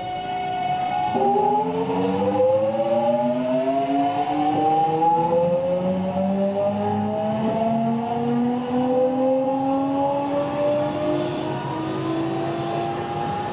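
Toshiba GTO VVVF inverter and traction motors of a 207 series 1000-subseries electric train accelerating. A steady whine switches about a second in to several tones that climb steadily in pitch. This car's modulation sound is known as abnormally odd compared with others of its class.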